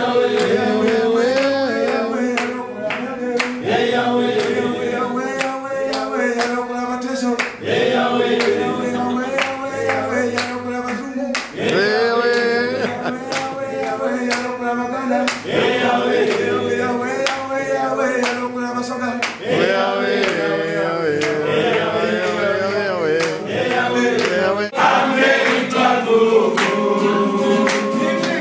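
A group of men singing a praise song together in unison, with steady hand clapping about twice a second. Near the end the recording changes to another group singing and clapping along to an acoustic guitar.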